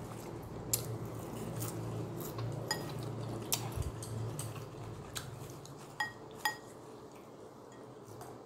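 Wooden chopsticks clicking and clinking against a ceramic bowl and plates during a meal: scattered light clicks, with two sharper ringing clinks about six seconds in. A low steady hum runs under the first half.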